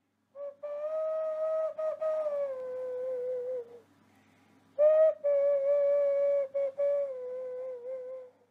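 Karanga, a woman's high ceremonial call of welcome onto a marae: two long held phrases, each wavering slightly with brief breaks and falling in pitch at the end.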